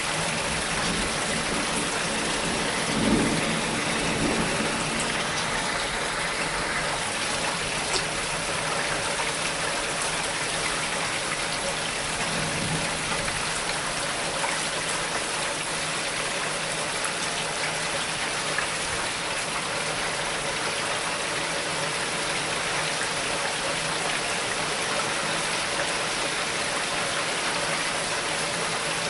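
Heavy rain pouring steadily in a severe thunderstorm. There are two brief low rumbles, about 3 seconds in and again about 12 seconds in.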